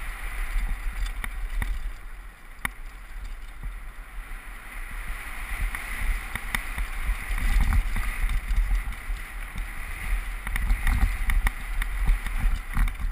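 Downhill mountain bike ride down a dirt track, picked up by a helmet-mounted GoPro HD: a constant wind and ride rumble with tyre noise on the loose dirt, broken by scattered sharp rattles from the bike over bumps. It eases off about two seconds in and builds again after about seven seconds.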